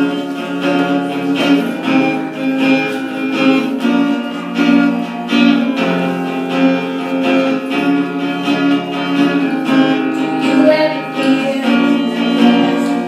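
Acoustic guitar strummed in a steady rhythm of chords.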